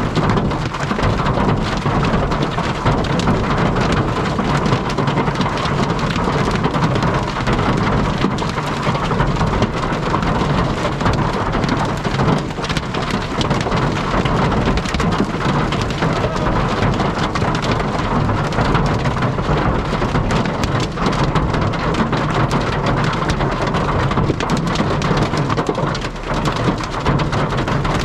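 Heavy rain and hail pelting a storm-chase vehicle's roof and windshield in a supercell thunderstorm: a dense, steady patter of impacts over a low rumble of wind.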